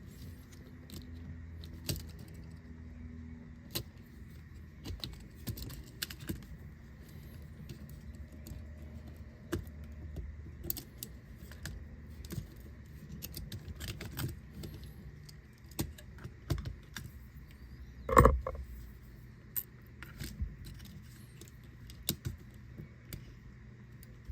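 Scattered small clicks and taps of tweezers and small tools on the opened Joy-Con's plastic parts and spring while it is being taken apart, with one louder knock about eighteen seconds in. A faint steady high tone runs underneath.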